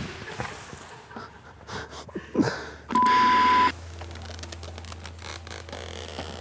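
A single steady high beep of under a second about three seconds in, a censor bleep laid over other sound. Around it, the soft rustle and creak of a nylon camping hammock as a man shifts his weight in it.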